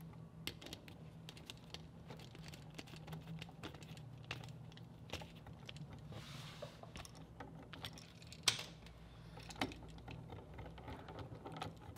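Faint, scattered small clicks and taps as an electrical outlet is wired by hand: the plastic receptacle, its terminal screws, the wires and a screwdriver being handled. Two sharper clicks come about two-thirds of the way through, over a low steady hum.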